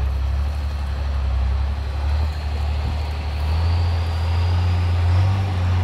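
Trial truck's engine running under load as the truck works down a steep bank, its revs climbing from about halfway through, with a faint high whine rising alongside.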